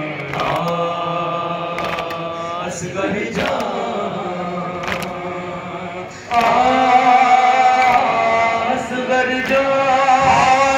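Male voices singing a noha, a Shia mourning lament, through microphones and a loudspeaker, in long held lines. The singing gets suddenly louder about six seconds in.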